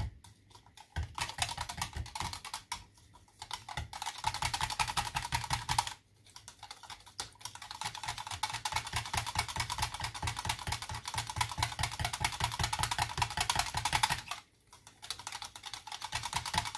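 Hand whisk beating a thin mix of water, olive oil and seasoning in a plastic measuring jug: rapid, rhythmic clicking of the wires against the jug, in several spells with short pauses.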